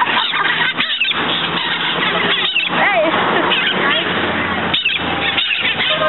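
A flock of wild red-masked parakeets (cherry-headed conures) calling close by: many shrill, overlapping calls rising and falling in pitch, almost without a break.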